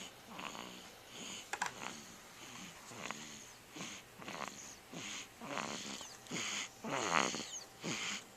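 Snoring during sleep: short, noisy breaths about one a second, the loudest a little before the end.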